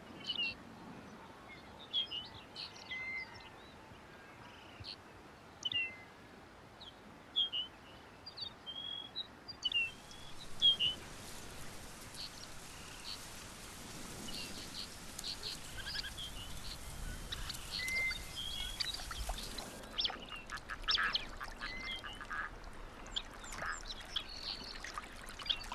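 Small birds giving short high chirps and calls, with a soft steady hiss between about ten and twenty seconds in. After about twenty seconds, ducks call with a quick run of quacks.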